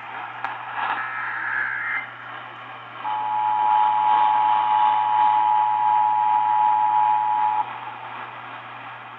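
NOAA Weather Radio broadcast over a radio receiver, with static and a low hum. It opens with the screechy data bursts of an alert's SAME header, then about three seconds in the two-tone EAS attention signal sounds steadily for about four and a half seconds before cutting off. Together they mark the start of a new warning broadcast.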